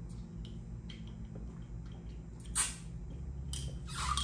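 Two people drinking from small glass soda bottles: quiet sips and swallows, with a short hissy burst about two and a half seconds in and more near the end.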